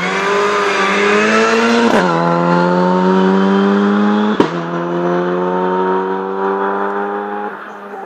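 Opel Adam rally car's four-cylinder engine accelerating hard past, the pitch dropping on an upshift about two seconds in and then climbing steadily. A sharp crack comes about four and a half seconds in, and the engine fades away near the end.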